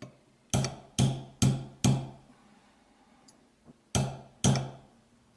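Hammer striking a 1/16-inch roll pin punch, driving the roll pin that holds the extractor into a Smith & Wesson M&P pistol slide. Four sharp metallic strikes about half a second apart, a pause, then two more, each with a short low ring.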